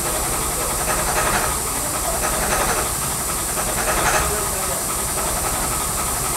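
A steady hiss, with a scraping stroke about every second and a half as a small block is shaped by hand with a rasp or abrasive.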